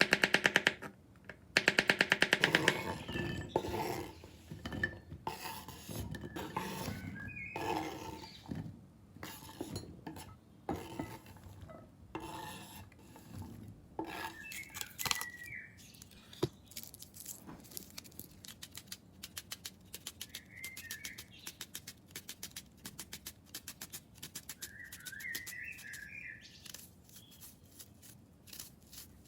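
A run of quick knocks and clinks of kitchen work, densest and loudest in the first few seconds, with a bird chirping a few times about halfway and near the end.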